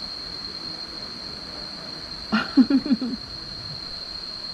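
Insects, crickets or cicadas, shrilling steadily on one high pitch. About halfway through, a short burst of five or six quick pulsing voiced sounds stands out as the loudest event.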